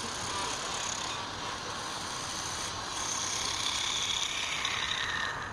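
A machine running steadily, with a high whine that comes up about halfway through and slides slightly lower near the end.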